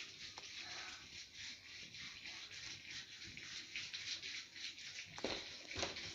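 Quiet room tone with a few faint clicks near the end.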